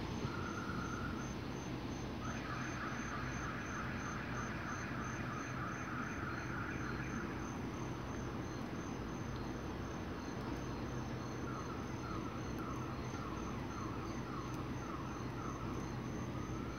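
Crickets chirping in an even pulse, about four chirps a second, over the steady low hum of an Amtrak electric train standing at the platform. A lower buzzing trill comes and goes twice, and a rising whine begins near the end.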